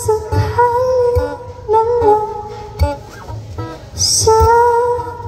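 A woman singing long held notes over her own strummed acoustic guitar, played live.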